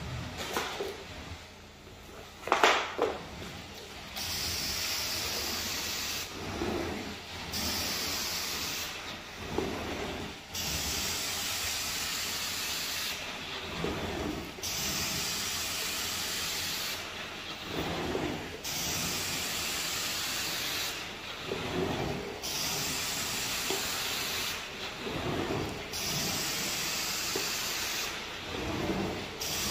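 Rug-cleaning spray wand going over a rug in repeated passes: a steady hiss that breaks off for about a second every three to four seconds, with a low thud at each break. A sharp knock comes near three seconds in, before the hissing starts.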